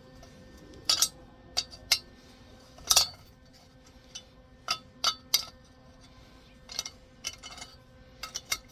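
A series of sharp, irregular metal clinks as a wrench works the welded-on bolt and broken steel stud out of the aluminum intake manifold.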